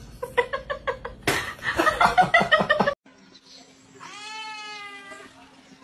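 A person laughing in rapid bursts, getting louder after about a second, cut off suddenly at about three seconds. Then a single long drawn-out cat meow, falling slightly in pitch, over a faint steady hum.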